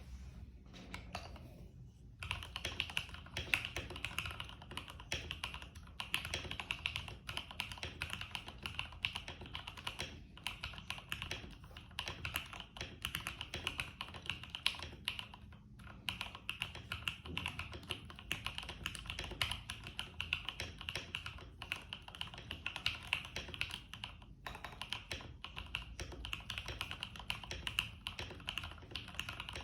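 IK75 keyboard being typed on steadily, a fast run of keystroke clicks with short pauses about two, ten, sixteen and twenty-four seconds in. The keyboard sits on a deskmat.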